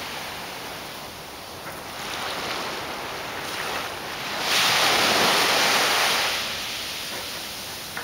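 Small waves washing up and draining back on a sandy beach, one wash swelling louder about halfway through.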